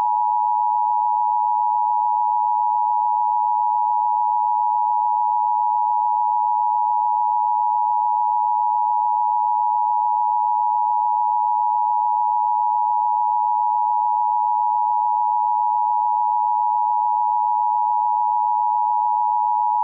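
A single steady electronic tone just under 1 kHz, unchanging in pitch and level: an alert or test tone in a mock Emergency Alert System broadcast.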